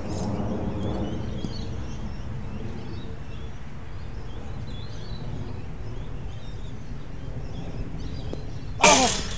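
Outdoor background: small birds chirping over a steady low hum of ambient noise. Near the end comes a brief, very loud, harsh cry.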